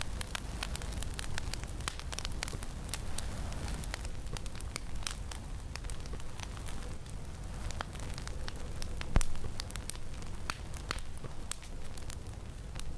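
Fire crackling: irregular sharp pops and snaps over a low steady rumble, with one louder pop about nine seconds in.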